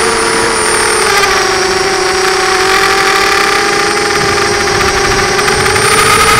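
FPV quadcopter's electric motors and propellers whirring steadily, close to the onboard camera's microphone. The pitch drops a little about a second in as the motors slow, then climbs again near the end as they speed up.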